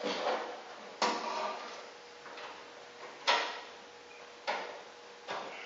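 Four sharp metal clicks and taps as a 1966 VW Beetle door lock remote is worked into place inside the door.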